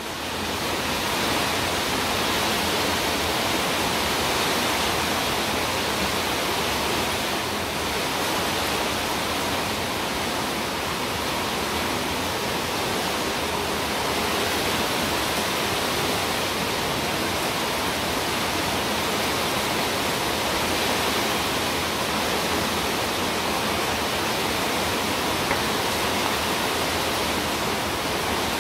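A steady, even hiss that does not change or pause, with no separate knocks or clicks standing out.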